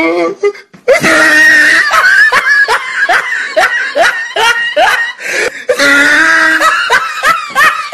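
A person laughing hard in quick, repeated bursts, with a short break about a second in.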